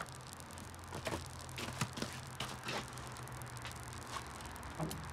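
Yanmar diesel engine of a John Deere Gator running with a steady low drone, not running smoothly. Several short clicks and taps from hands and tools working at the engine are heard over it.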